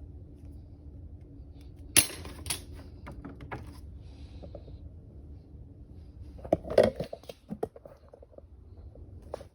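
Metal tools and parts clinking and knocking as they are handled, with a sharp clank about two seconds in and a quick cluster of clatters a few seconds later, over a low steady hum.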